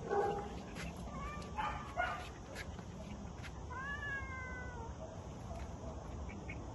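A cat meowing: one long, drawn-out meow that rises and then falls about four seconds in, with a few short high cries before it.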